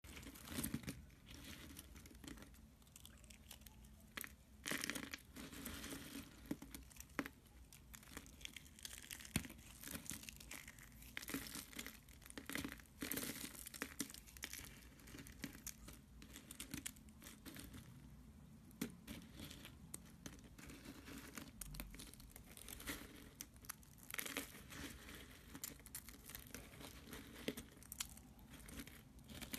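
Hands squeezing and crushing a pile of dry cut soap shavings and curls: an irregular crackling crunch of brittle soap flakes breaking and shifting, in uneven handfuls with louder clusters every few seconds.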